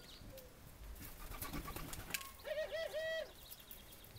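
Barbary doves calling: three short arched notes in quick succession about two and a half seconds in, with faint rapid high chirps of small birds around them.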